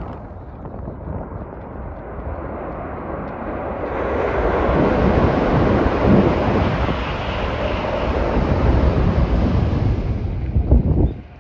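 Tokaido Shinkansen high-speed train passing at speed along a river viaduct and bridge: a rushing noise that builds about four seconds in, holds strong for several seconds, then cuts off suddenly near the end. Wind buffets the microphone throughout.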